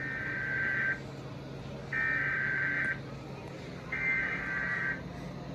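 Emergency Alert System SAME header: three bursts of digital data tones, each about a second long with about a second between them, over a low steady hum. The bursts are the coded header of the tornado warning that follows.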